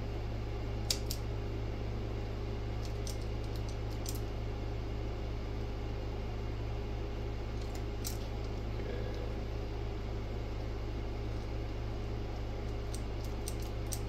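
Hand crimping pliers clicking and snipping a few times on copper speaker wire, the sharpest click about a second in, over a steady low hum.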